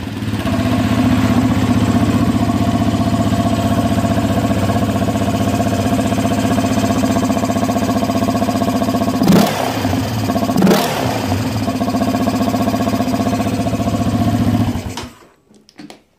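Yamaha Raptor 700R quad's single-cylinder four-stroke engine idling through an FMF full exhaust with the airbox removed. It is blipped briefly twice, about 9 and 11 seconds in, then switched off near the end.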